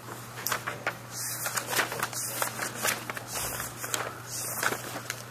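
Paper rustling with many small clicks and handling noises, as ballot sheets are handled and sorted, over a steady low electrical hum.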